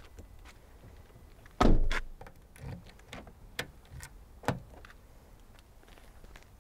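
Driver's door of a 2012 Volkswagen up! three-door shut with a single heavy thud about a second and a half in, followed by a couple of lighter clicks.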